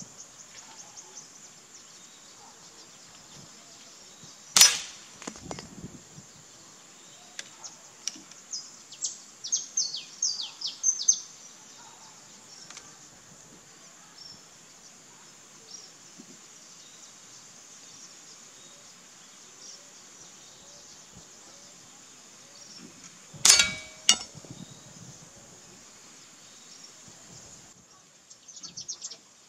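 Two air rifle shots, each a sharp crack followed by a second knock about half a second later, the shots close to twenty seconds apart. Between them, a bird gives a quick run of high, falling chirps.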